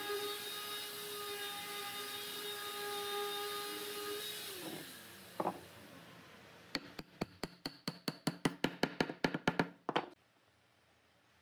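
A steady held tone slides down and fades about four seconds in. Then comes a single knock, and from about seven seconds a quick run of about twenty light wooden-mallet taps on the end of a wooden post, driving it into a glued slot in a wooden block base. The taps stop about ten seconds in.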